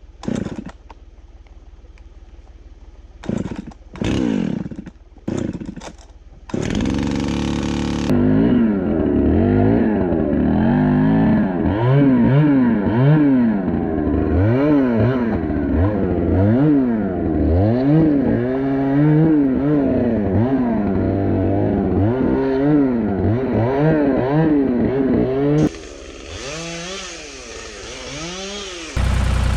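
Chainsaw revving up and down over and over, about once a second, after a few short knocks and clatter in the first seconds; near the end it drops back to lower revs.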